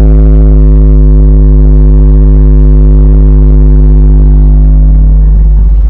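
SemarR7 carnival sound system's subwoofers playing one long, steady, very deep bass note, very loud. It begins to fade near the end.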